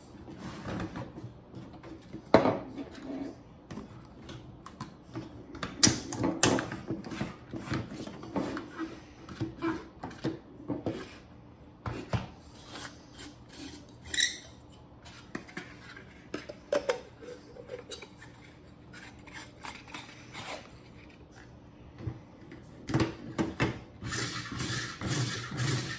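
Hands handling and fitting 3D-printed plastic parts on a tabletop: scattered clicks, knocks and rubbing of plastic on plastic, with the loudest knocks about two, six and twenty-three seconds in. A denser stretch of rubbing and rattling comes near the end as a cardboard filament spool is fitted onto the holder.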